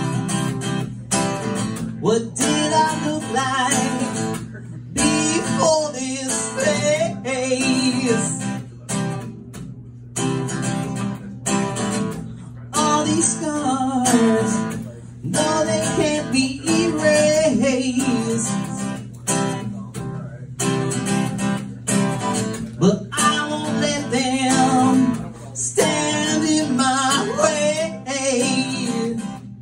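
Acoustic guitar strummed in chords, with a man singing over it: a live solo song.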